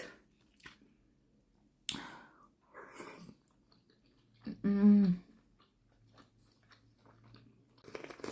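Close-up mouth sounds of eating a juicy dumpling: intermittent chewing and wet, smacking noises, with a brief vocal sound about five seconds in.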